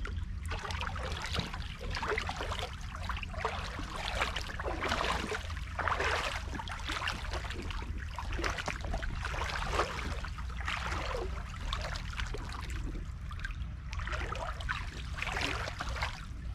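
Boots wading through shallow creek water, with irregular sloshes and splashes about once a second over a steady low rumble.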